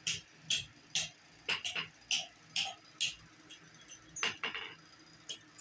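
Even ticking, about two sharp clicks a second, over a faint low hum.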